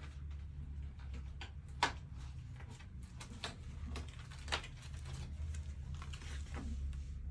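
Scattered light clicks and taps, two sharper ones about two and four and a half seconds in, over a low steady hum.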